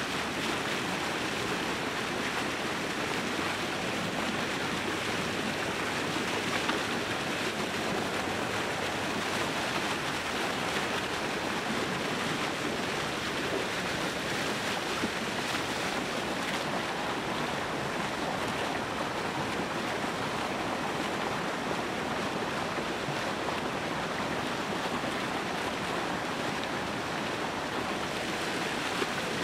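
Steady rushing and splashing of churning open water breaking white along the edge of lake ice.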